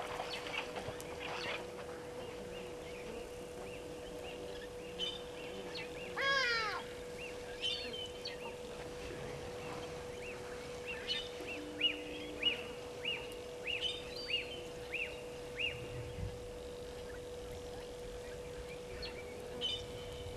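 Wild birds calling around a bush waterhole: one loud call about six seconds in, then a run of short repeated downward chirps later on, over a steady faint tone.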